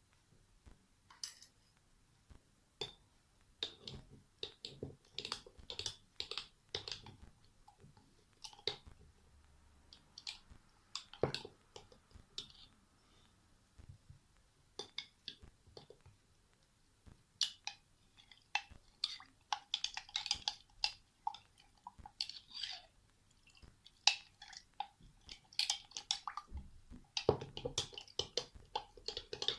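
Irregular small clicks, taps and clinks of kitchen handling: utensils, dishes and ingredients being worked by hand, with an occasional duller knock.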